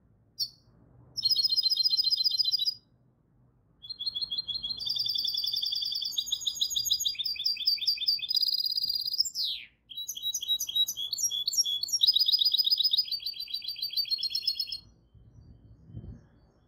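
Goldfinch hybrid singing a long, high-pitched song of fast trills and twittering phrases, with short pauses about three seconds in and near ten seconds. A soft low knock comes near the end, after the song stops.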